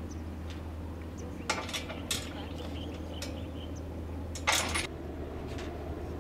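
A few short bursts of clinking and clattering, like hard objects knocking together, about a second and a half in, two seconds in, and louder at about four and a half seconds, over a steady low hum.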